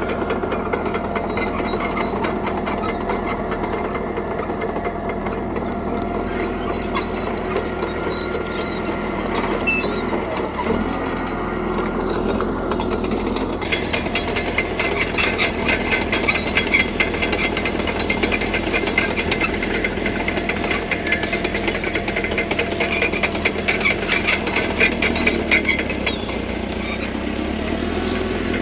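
CAT D3K crawler bulldozer's diesel engine running steadily under load, with its steel tracks clanking and squealing; the rapid track clatter gets louder about halfway through.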